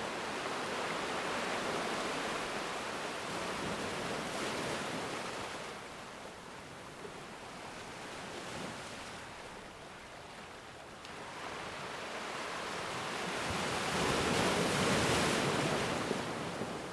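Sea waves surging and washing in, a steady rushing wash that swells and eases: loud for the first few seconds, softer through the middle, then building to its biggest surge near the end.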